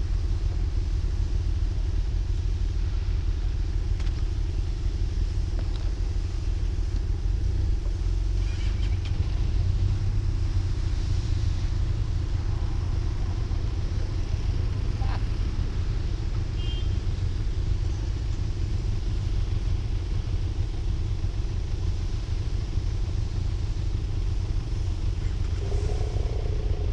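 Motorcycle engine running at a steady speed, an even low engine note with no revving.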